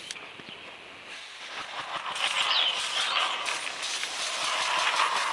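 Partly built Tich model steam locomotive chassis running on compressed air: a rapid, hissing puffing of air exhausting from its cylinders. It starts about a second in and grows louder.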